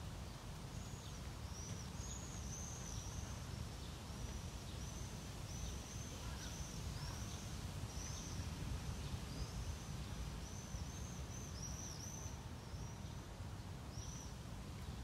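A small bird chirping repeatedly, short arched high notes about once or twice a second, over a steady low rumble.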